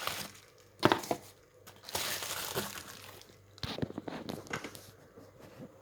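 Packaging being handled during an unboxing: plastic wrapping crinkling and rustling in irregular bursts, with a few sharp knocks, one a second in and another near four seconds.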